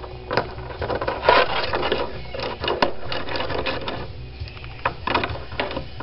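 African grey parrot growling close to the microphone: rapid, rasping clicks in bursts, the longest from about one to three seconds in and a shorter one near the end.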